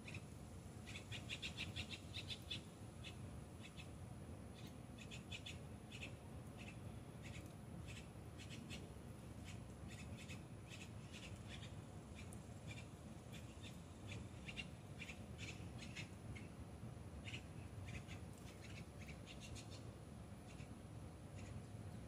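Grackle chicks calling over and over in short, harsh, yappy bursts that sound like a toy dog, grouped in quick clusters.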